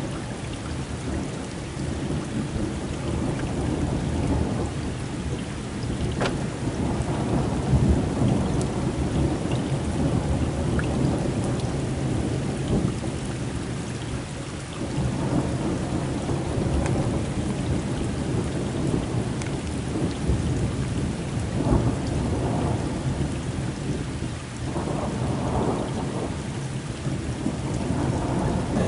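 Heavy rain falling with thunder rumbling almost without pause during a severe thunderstorm. A couple of sharper claps stand out, about eight seconds in and again a little past twenty seconds.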